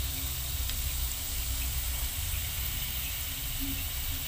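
Spiral-cut, flour-coated potato on a skewer deep-frying in hot oil, a steady sizzle and bubbling, over a steady low hum.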